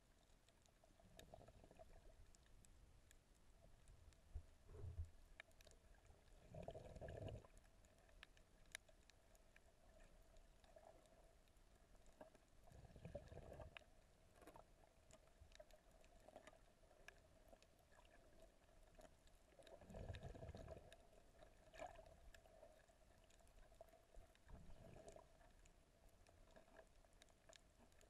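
Faint, muffled underwater sound picked up by a camera in the water: low whooshes of moving water come and go every few seconds, with scattered faint clicks over a steady faint hum.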